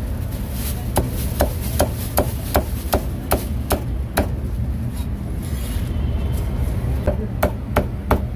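Heavy meat cleaver chopping crispy roast pork belly on a thick wooden chopping block. There are about ten sharp chops at an even two to three a second, a pause, and then four more quick chops near the end, over a steady low rumble of street traffic.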